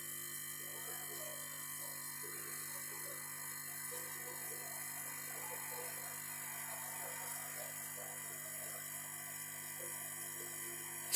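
Faint steady electrical hum and hiss with several fixed tones, under faint indistinct background sounds.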